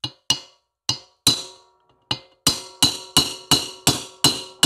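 Sharp metallic taps, each ringing briefly. A few spaced strikes come first, then a steady run of about three a second: a brass rod being struck to drive an O-ringed part home into an aluminium Triumph Tiger Cub cylinder head.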